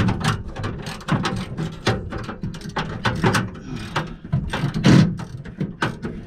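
Hand ratchet wrench clicking in quick runs as a bolt holding an air-conditioning unit is worked loose.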